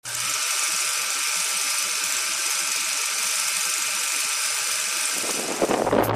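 Old-film projector sound effect: a steady whirring hiss with crackle, with music fading in with a bass beat near the end.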